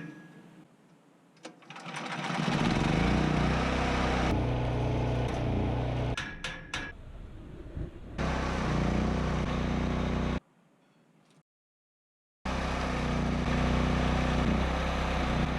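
A vehicle engine running, its pitch rising and falling a few times as it revs, heard in several short cuts with a few sharp clicks and a brief dead gap.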